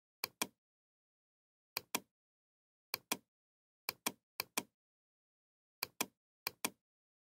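Computer mouse button clicked seven times, each click a sharp press-and-release pair, at uneven intervals.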